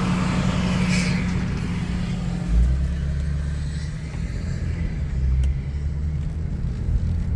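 Car cabin noise while driving: a steady low engine hum and road rumble, with a brief burst of noise about a second in.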